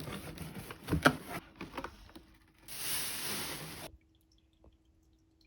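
A few knocks and handling noises, then a short hiss of running or pouring water lasting about a second, after which the sound drops to near silence with a faint steady hum.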